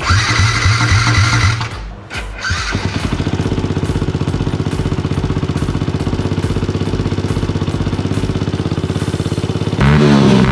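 Rebuilt small motorcycle engine running: a few seconds of uneven running, then a steady idle with even firing pulses. Near the end it gets louder and is revved up and down.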